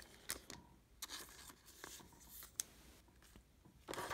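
Faint rustling and light taps of trading cards being handled and set down on a tabletop, a few short scattered sounds. Near the end a louder crinkle starts as a foil card pack is picked up.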